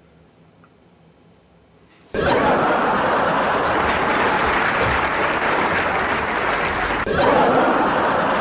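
Quiet room hum, then, about two seconds in, a laugh track of an audience laughing and applauding cuts in suddenly and carries on loudly, with a fresh swell about seven seconds in.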